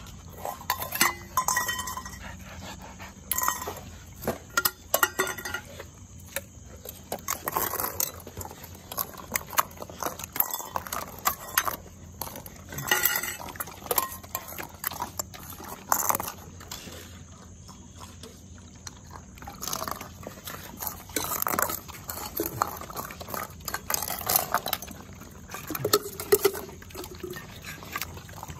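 A metal spoon scraping and clinking against a steel pot, with stainless steel dog bowls clattering on the ground in irregular sharp clicks. Dogs eating from the bowls are heard among the clinks.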